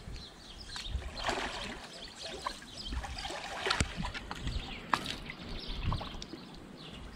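Water splashing and sloshing in a dunk tank as a person goes under head-first into a handstand, with a few sharp drips and clicks.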